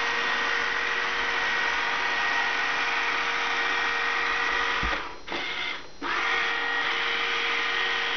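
Techko Maid RV102 robotic sweeper running: a steady motor whir with a constant whine. It dips briefly twice about five to six seconds in.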